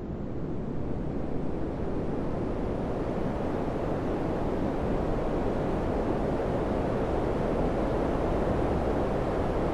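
Samsung air conditioner running: a steady rush of fan airflow that grows louder over the first few seconds, then holds even.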